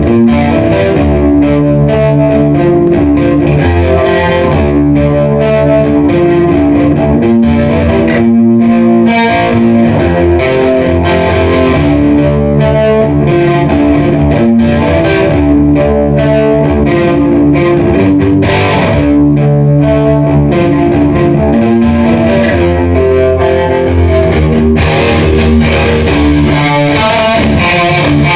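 Electric guitar played through effects pedals, an EarthQuaker Devices Sea Machine chorus and a Silencer, with a distorted tone and sustained notes and chords. The tone turns brighter about three seconds before the end.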